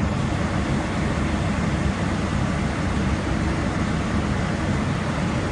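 Steady, deep rushing noise inside an airliner cockpit in cruise flight: air streaming over the fuselage and the cabin air-conditioning, even and unbroken.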